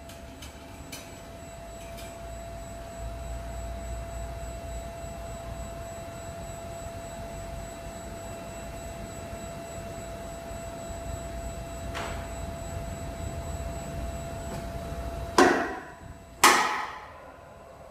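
SMT taut wire system's winch paying out wire to lower its clump weight, with a low rumble under a steady tone. Near the end come two loud knocks about a second apart as the weight touches down on the floor.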